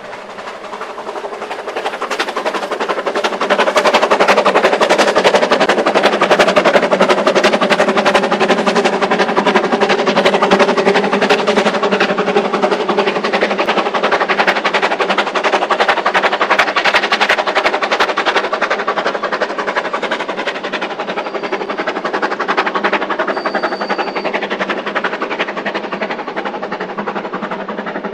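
Narrow-gauge steam locomotive passing with a train of coaches: a fast run of chuffing exhaust beats. It builds over the first few seconds, holds steady, and eases slightly toward the end.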